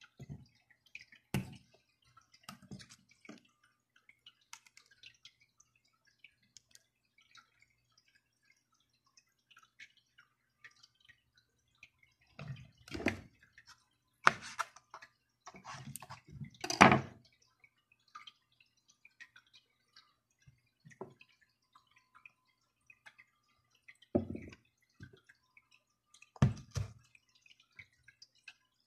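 Scattered light taps and clicks of a knife, wooden skewers and pieces of cucumber and carrot being handled on a plastic cutting board. A cluster of louder knocks comes in the middle, and a few more come near the end.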